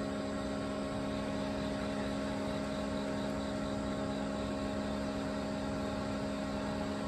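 A steady mechanical hum with several held low tones over an even background noise, unchanging throughout.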